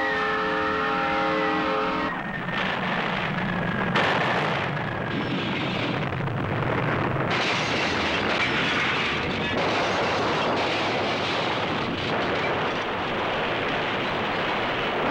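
A locomotive air horn sounds a chord for about the first two seconds and then stops. It gives way to a tornado's continuous, loud roar of wind, with a sharp crack about four seconds in.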